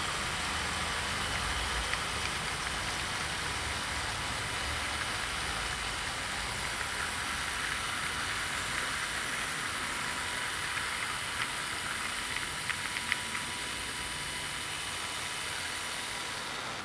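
OO gauge model train, a Hornby Class 71 electric locomotive hauling coaches, running along the layout track: a steady rolling hiss of wheels on the rails, with a few light clicks in the second half.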